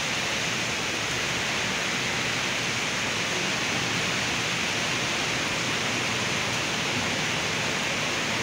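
Heavy tropical rain pouring down steadily, a dense, even hiss of downpour.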